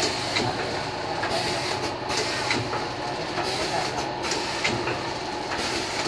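Vertical form-fill-seal pouch packing machine running with a steady hum, its cycle clacking sharply in pairs about every two seconds.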